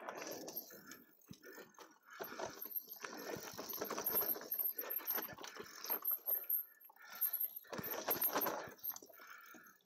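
Mountain bike clattering over rough trail, irregular bursts of knocks and rattles with short lulls about a second in and again about seven seconds in.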